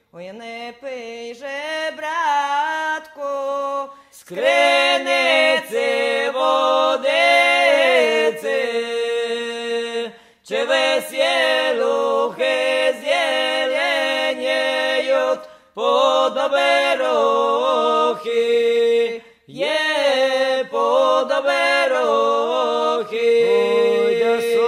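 Traditional Polesian folk song sung a cappella by a small vocal group, in phrases of a few seconds with short breaks between them, several phrases ending on a long held note.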